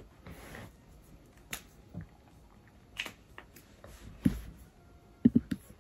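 Scattered soft clicks and taps of a ballpoint pen and journal being handled on a bed, with a louder thump about four seconds in and a quick run of knocks near the end.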